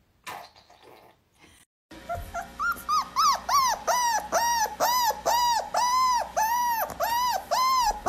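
A recording of a puppy crying, played back: a run of high-pitched whimpering cries, each rising and falling, about three a second, starting about two seconds in.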